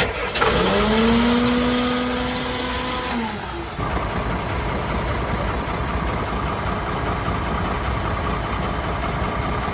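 Boat engine being started after a broken alternator belt was replaced: a whine that rises in pitch and holds for about three seconds, then drops away, and from about four seconds in the engine runs steadily.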